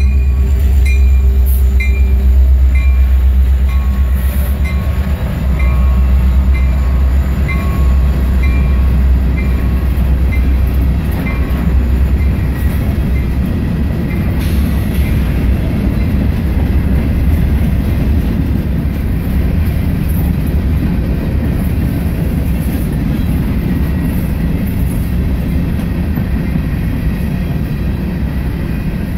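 CSX freight train passing close by. A deep diesel locomotive drone fills the first dozen seconds, then covered hopper cars roll past with a steady rumble and clatter of wheels on rail.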